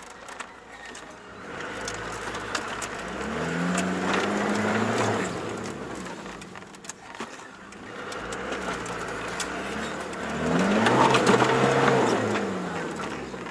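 Land Rover Discovery's engine revved in two long surges as it works up a rough, rocky track, its pitch climbing and falling with each push. Only one rear wheel is driving, a sign that the rear diff lock is not working.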